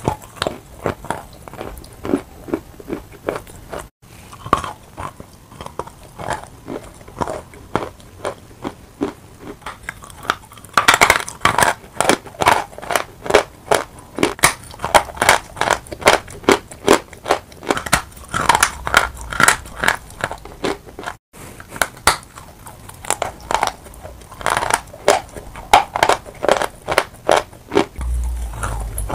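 Close-miked biting and chewing of a sawn chalk bar: a rapid, uneven run of dry crunches, coming thickest in a few bursts.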